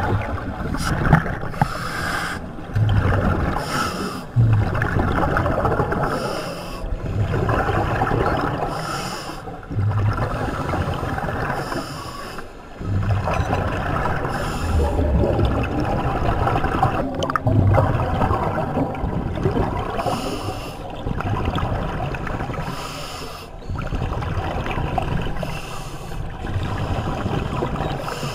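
Scuba diver breathing underwater through a regulator, a breath in and out every two to three seconds with a rush of exhaled bubbles.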